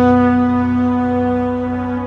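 Background music: a slow, sustained chord of low instrumental tones held steady.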